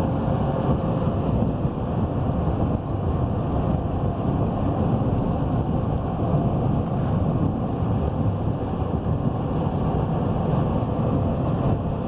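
Chevy Silverado 3500 pickup driving at highway speed, heard from inside the cab: a steady mix of engine, tyre and road noise.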